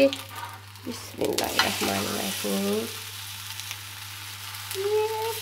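Batter pancake sizzling in oil on an iron tawa as it is turned over with steel tongs. The sizzle and clatter are loudest from about one to three seconds in, then settle to a steady quieter sizzle.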